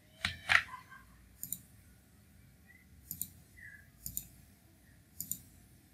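Quiet computer clicks, four short double clicks (press and release) spread a second or so apart, from a mouse and keyboard being used to edit and save a file.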